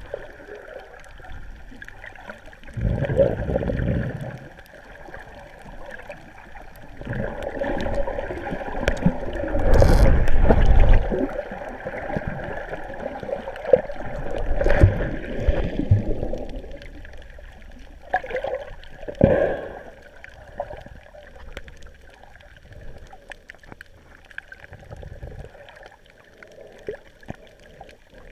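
Water sloshing and rushing around a camera moving underwater and at the surface, swelling into four louder surges.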